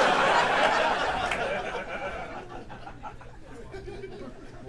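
Audience laughing, loudest at the start and dying away over about three seconds.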